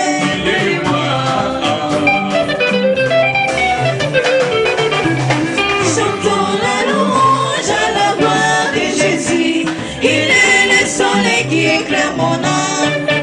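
Live gospel hymn: women singing into microphones with a band of drum kit, keyboard and guitar, over a steady pulsing bass.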